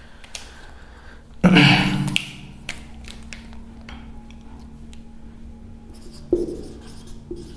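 Writing sounds: light taps and scratches of a pen on a writing surface as the question is written out. A brief vocal sound comes about a second and a half in, with a fainter one near the end.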